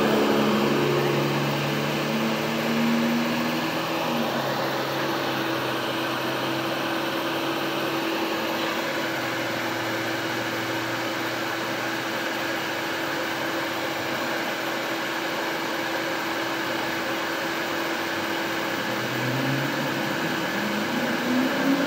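Vehicle engines idling at a steady hum, with a lower engine note that shifts in pitch during the first few seconds.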